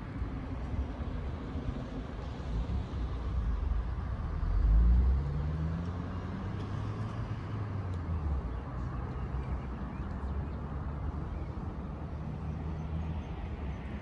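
A motor vehicle driving past, loudest about five seconds in, its engine note rising as it nears, over a low rumble.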